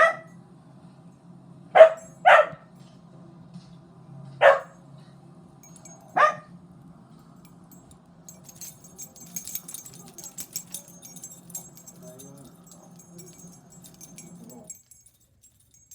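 A mixed-breed dog barking: five short, sharp barks in the first six seconds, two of them in quick succession. Faint scattered clicking follows, over a steady low hum.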